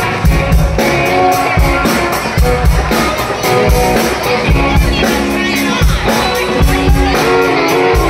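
Live rock band playing amplified electric guitar and bass over a drum kit keeping a steady beat.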